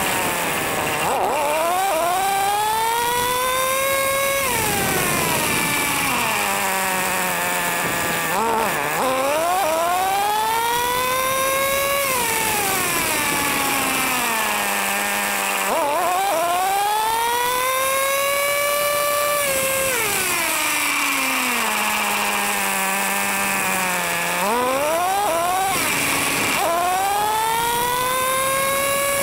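Traxxas T-Maxx 3.3's two-stroke nitro engine, heard from a camera mounted on the truck, revving up repeatedly to a high rising whine and dropping back to a low steady idle between runs, four or five times over.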